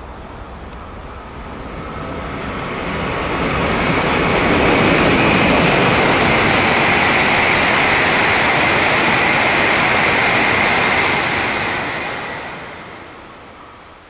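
E7 series Shinkansen running through the station at speed without stopping: a rushing noise of wheels and air that swells over about four seconds, holds loud for about six, then dies away as the train goes by.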